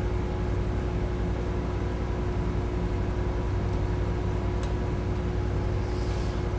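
Steady low electrical hum with a faint steady tone above it, and a few faint ticks.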